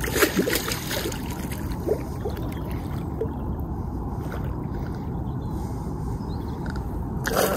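A hooked fish splashing and thrashing at the water's surface right below the river wall, loudest in the first second, with a few smaller splashes and ticks after. Under it runs a steady low rumble of wind and lapping water.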